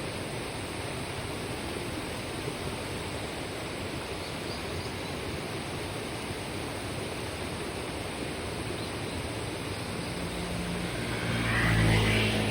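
Steady rush of a mountain stream running over rocks. Toward the end a vehicle passes: its engine hum swells to a peak about a second before the end and then begins to fade.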